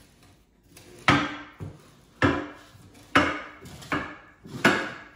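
Heavy stoneware crocks knocking as they are set down and shifted into place on the hardwood floor: five sharp clunks about a second apart, with a lighter knock after the first.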